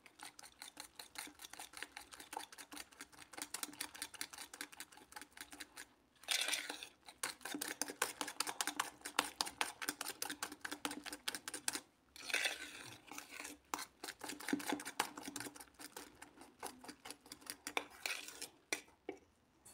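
Batter of eggs, sugar, flour and oat flakes being beaten by hand with a fork in an enamel bowl: quick, rapid clicking of the fork against the bowl, about four or five strokes a second, with short pauses about six and twelve seconds in.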